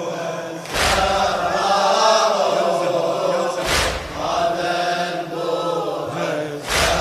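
Male voices chanting a slow Shia mourning chant (latmiyya), held and drawn out. A deep, heavy thud falls about every three seconds, three in all, keeping the beat of the chant.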